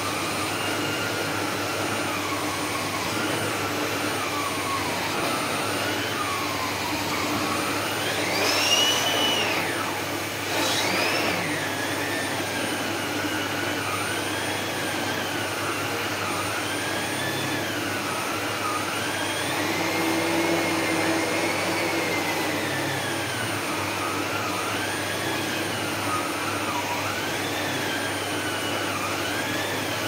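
Electrolux SilentPerformer Cyclonic bagless canister vacuum running on a thick shag rug, its whine wavering up and down in pitch as the nozzle is pushed and pulled through the pile. About eight seconds in, the whine rises sharply and grows louder for a moment.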